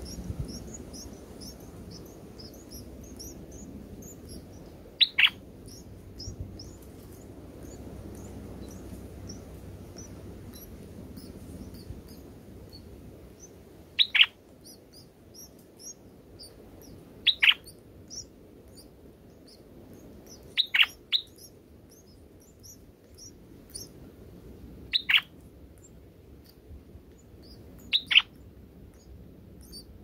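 Red-whiskered bulbuls at the nest: six sharp, downward-sweeping chirps, several in quick pairs, over a steady run of faint high twittering.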